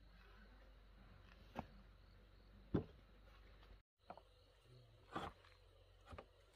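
Near silence broken by a few faint, separate knocks or taps, about one every second, the one near the middle the loudest.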